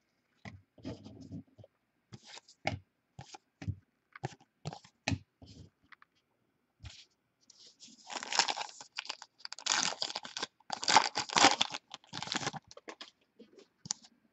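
Trading cards being handled, with short taps and clicks, then about four seconds of tearing and crinkling from about eight seconds in: a trading-card pack wrapper being torn open.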